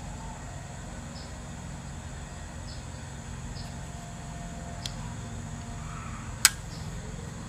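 Zero Tolerance 0562CF flipper folding knife flicked open: a single sharp metallic snap about six and a half seconds in as the blade swings out and locks, with a fainter click about a second and a half before it. A steady low background rumble runs underneath.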